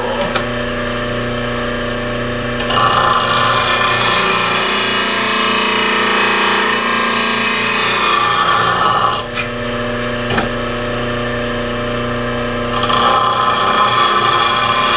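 Bench grinder running with a steady hum while a steel bowl gouge in a Wolverine jig is swung back and forth against the grinding wheel. The grinding hiss starts about three seconds in, drops out for a few seconds past the middle with a couple of light clicks, and resumes near the end.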